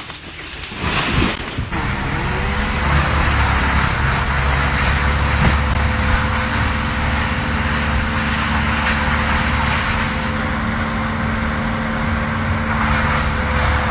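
An engine running at a steady, unchanging speed, after a brief louder surge about a second in.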